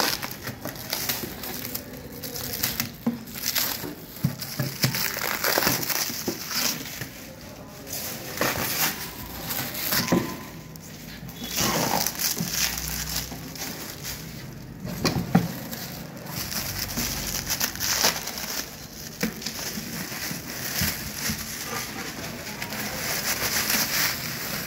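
Plastic stretch wrap being pulled and torn off a box by hand, rustling in irregular crackles.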